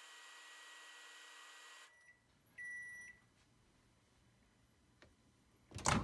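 GE Profile Spacemaker XL 1400 over-the-range microwave running a cup of water with its new magnetron, a steady hum that shuts off abruptly about two seconds in. A single high beep of about half a second follows, marking the end of the heating cycle. A loud clunk comes right at the end.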